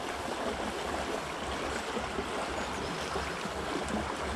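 A small river's water flowing steadily, an even, continuous rush.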